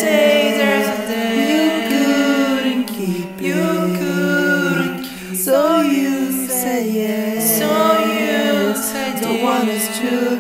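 Music: a slow acoustic love song, a voice singing melodic lines over a steady held low note.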